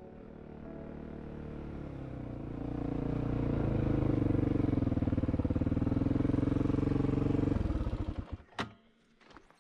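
Honda XR400R dirt bike's single-cylinder four-stroke engine running, growing louder over the first few seconds and then holding steady. It cuts out suddenly near the end, followed by a sharp click and a few light knocks.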